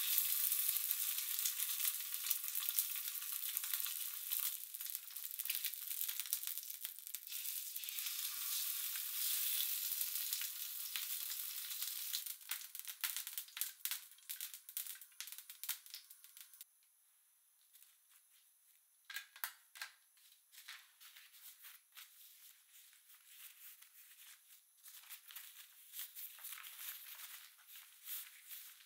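Bonito fillet searing in a hot stainless steel frying pan: a loud, steady sizzle that breaks into crackling and spitting about twelve seconds in and cuts off suddenly a few seconds later. Fainter scattered clicks and rustles follow as the seared fish is handled.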